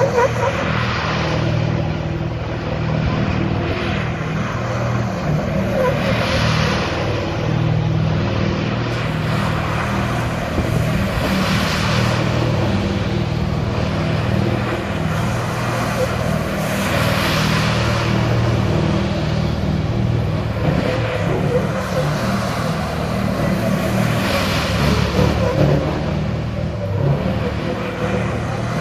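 Scania 144's V8 turbo diesel held at high, steady revs through a long burnout, the rear tyres spinning and smoking on the tarmac. The noise swells about every five to six seconds as the truck circles in donuts.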